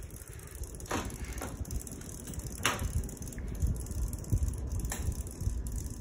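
Harbor Breeze ceiling fan running, its spinning blades pushing air that buffets the microphone as a low, uneven rumble. Three sharp clicks come about a second in, near three seconds and near five seconds.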